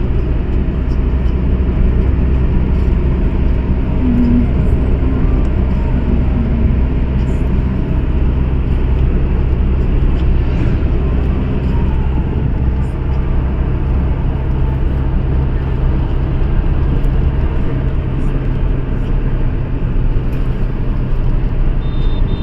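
Steady road noise of a moving car heard from inside the cabin: engine and tyres running on a paved road.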